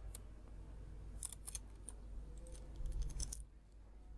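Computer mouse buttons clicking: several sharp clicks, some single and some in quick clusters, over a low steady hum.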